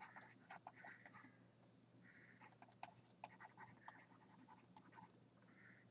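Faint scratching and tapping of a stylus writing on a tablet: a string of short pen strokes and small clicks as handwriting is put down.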